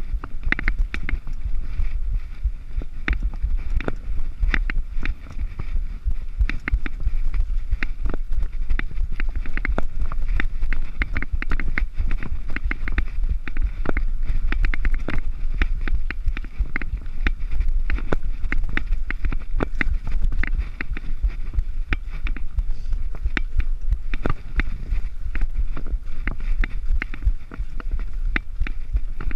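Mountain bike ridden fast down a rough dirt and stone trail: many irregular sharp clicks and rattles from the bike jolting over the ground, over a steady low wind rumble on the microphone.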